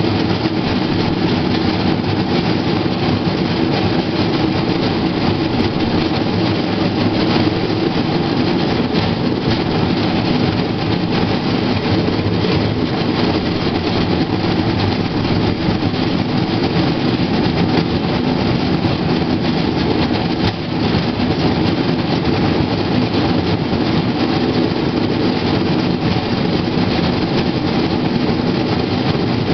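Steel wheels of a pedal-powered Play-Team rail bike rolling steadily along old, overgrown track. The noise is loud and unbroken, with a brief dip about twenty seconds in.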